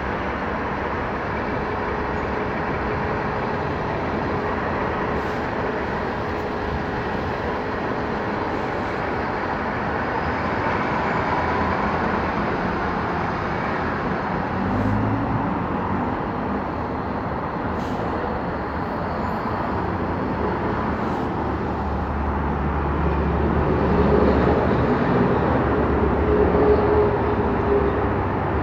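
Steady rumble of bus and traffic engine noise, with a heavy vehicle's low engine rumble growing louder about three-quarters of the way through.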